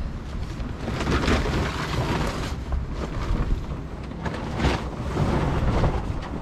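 Strong wind buffeting the microphone, a heavy rumble that swells in gusts, about a second in and again near the end.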